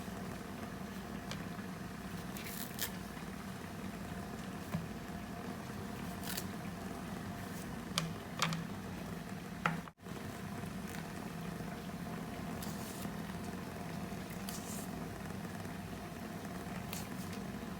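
Kitchen cooking sounds: a steady low hum with a pot or pan heating on the stove, broken by a few sharp light clicks and taps of utensils.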